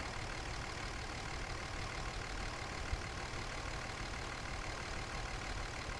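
Faint, steady low background rumble with a single light tap about three seconds in.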